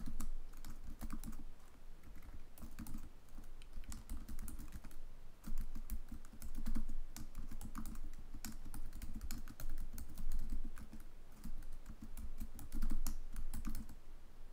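Typing on a computer keyboard: a steady run of keystroke clicks, with a short pause about five and a half seconds in.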